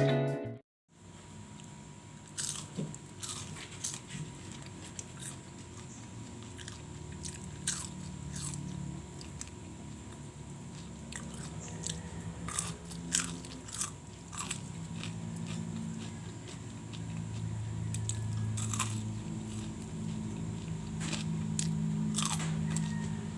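Crunchy food being bitten and chewed close to the microphone: scattered sharp crunches every few seconds over a low, steady background hum.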